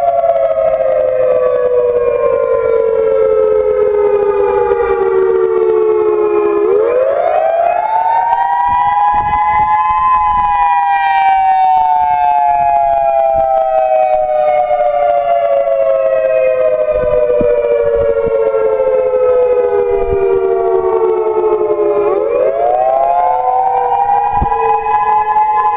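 Electronic outdoor tornado warning siren, a Federal Signal EOWS-612, sounding a wail during a siren test. The pitch slides slowly down, sweeps quickly back up, then falls slowly for about twelve seconds before sweeping up once more near the end.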